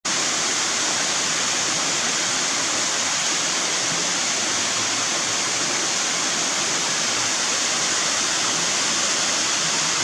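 Small waterfall and creek rapids running over rock ledges: a steady, even rush of water with no change throughout.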